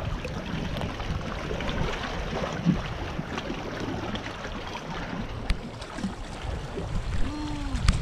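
Seawater sloshing and lapping around a sea kayak and against the shore rocks, a steady splashing hiss with scattered small clicks and drips.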